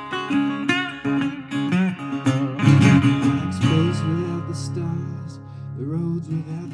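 Metal-bodied resonator guitar played in an acoustic blues style, with picked notes and strummed chords. A man's voice comes in singing over it in the later part.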